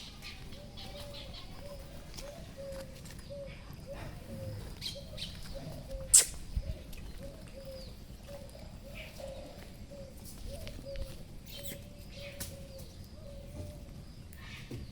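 A bird cooing in a long run of short, repeated low notes, about two a second, with a few sharp clicks scattered through, the loudest about six seconds in.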